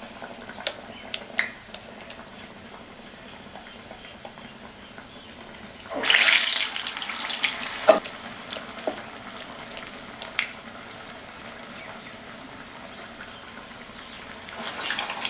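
Medu vadai batter deep-frying in hot oil in a kadai: a steady sizzle that swells loudly about six seconds in and again near the end, as fresh vadai are slipped into the oil, with a few light clicks.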